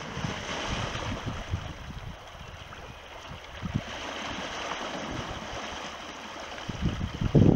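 Fast river current rushing steadily, churning around the legs of a wading angler. A loud low rumble breaks in near the end.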